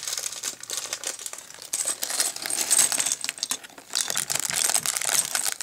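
Small plastic Lego pieces tipped out and clattering onto a cardboard surface: many quick, light clicks and rattles.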